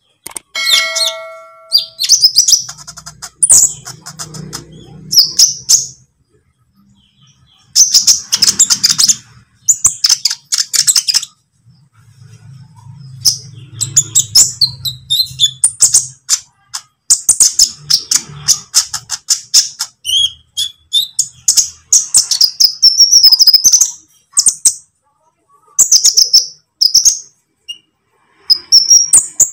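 Olive-backed sunbird twittering: rapid, high-pitched chirps in short bursts, with brief pauses between phrases.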